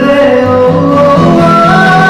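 Live acoustic performance: a man singing a melody into a microphone, accompanied by two acoustic guitars.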